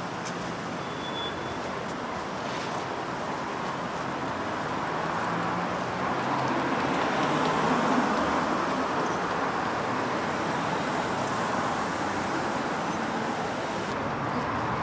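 City street traffic: a steady wash of cars passing on a wide avenue, swelling as vehicles go by around the middle. In the last few seconds a run of short, very high-pitched squeaks or chirps stands out above it.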